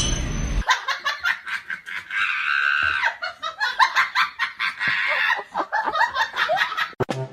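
High-pitched laughter, many quick repeated peals for about six seconds, stopping just before the end.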